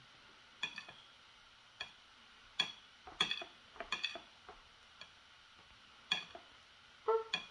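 Butter knife clinking and tapping against the plate and bread while spreading peanut butter: about fifteen sharp, briefly ringing clicks at irregular intervals, with a short pitched sound near the end.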